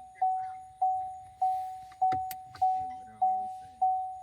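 2023 Chevy Trailblazer's warning chime sounding over and over, a single ding about every 0.6 s that dies away after each strike. A few sharp clicks come a little past the middle.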